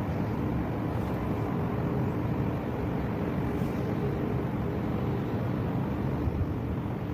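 Steady low rumble of outdoor harbour ambience with a faint hum, even in level throughout.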